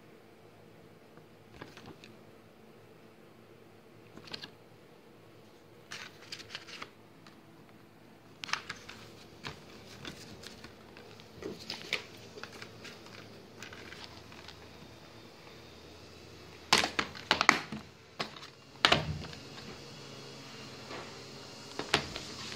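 Plastic DVD cases and a paper insert being handled: scattered clicks, rustles and light knocks, with louder clusters of knocks about three quarters of the way through.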